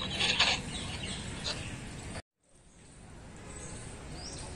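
Outdoor background noise with a few short noisy bursts, cut off abruptly about two seconds in and fading back up; small birds begin chirping near the end.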